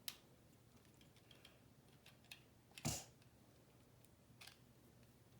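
Lego bricks clicking as they are handled and pressed together: a sharp click right at the start, a louder one about three seconds in, and a few faint ticks in between.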